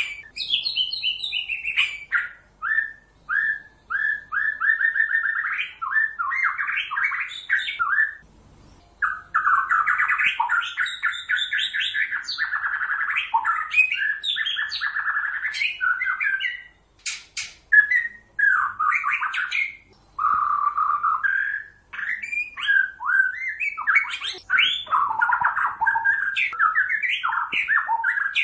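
White-rumped shama (murai batu) singing prolifically: a long, varied run of quick whistled and chattering phrases, with two short pauses, one about a third of the way in and one near the middle.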